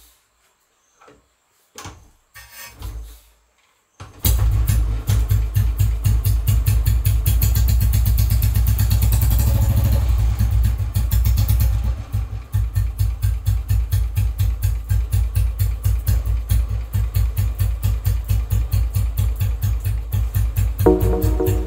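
Royal Enfield Bullet's single-cylinder engine starting about four seconds in after a near-silent pause. It runs faster for several seconds, then settles into a steady idle with evenly spaced, distinct firing beats. Music comes in near the end.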